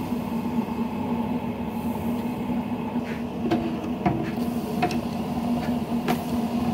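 Wire fry baskets of a Cajun Fryer deep fryer clinking as cornmeal-coated catfish fillets are lowered into hot peanut oil: a handful of sharp metal clinks from about three seconds in. Under them runs the steady hum of an electric ice cream maker's motor.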